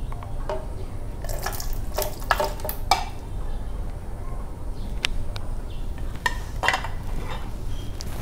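A metal spoon scraping and clinking against a bowl and a plastic blender jar as wet peeled lychee flesh is scooped into the jar: a series of irregular clicks and soft knocks.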